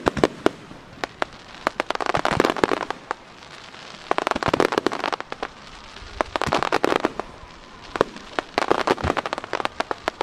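Aerial fireworks bursting in a rapid barrage: many sharp bangs, with dense crackling clusters about every two seconds.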